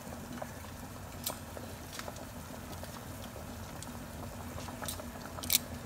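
Pork broth at a rolling boil in a stainless steel stockpot, bubbling steadily, with a few sharp clicks, the loudest near the end.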